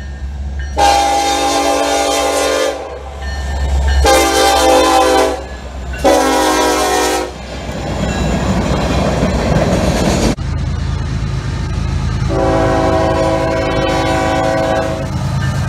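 Diesel freight locomotive air horns: three blasts, the first the longest, then the rumble and clatter of the train's wheels rolling past. After an abrupt break, a second locomotive sounds one long horn blast over a steady low engine rumble.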